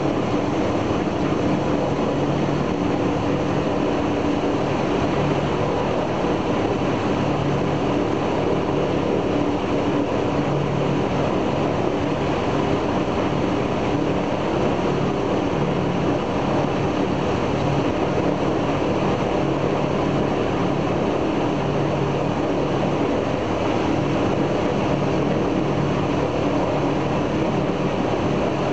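The Il-14's left engine, a Shvetsov ASh-82T radial, running steadily during a ground run-up, heard from inside the cockpit as a loud, even drone.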